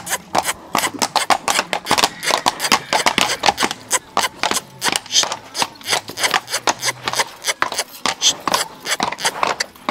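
Hooves of a dancing horse striking the ground in quick, irregular taps, several a second.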